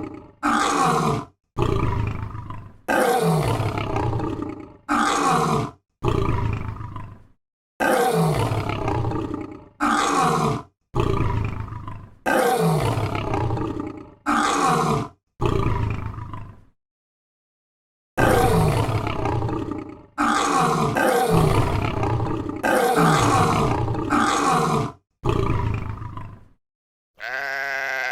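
Lion roaring over and over, each roar a second or two long and falling in pitch, with a pause of about a second and a half past the middle.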